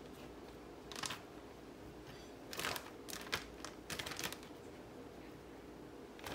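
Faint, scattered rustles and soft taps of a plastic zip-top bag being handled as pieces of portobello mushroom are dropped into it, a handful of short sounds a second or so apart.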